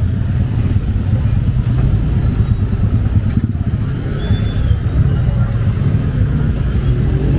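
Street traffic noise: a steady low rumble of road vehicles, with faint voices in the background.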